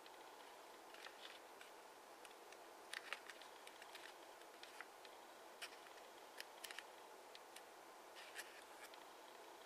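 Faint, scattered crinkles and ticks of origami paper being pressed and shaped by fingers, over a steady low hiss.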